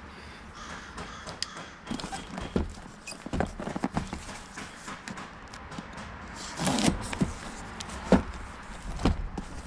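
Cardboard shipping box being opened and handled by hand: scattered knocks, taps and rustles, with a longer scraping, tearing noise about seven seconds in.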